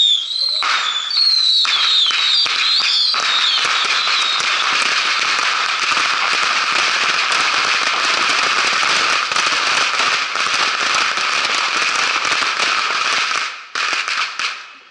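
A dense barrage of bottle rockets: several shrill whistles in the first few seconds, then a continuous crackle of rockets firing and bursting that cuts off abruptly about a second before the end.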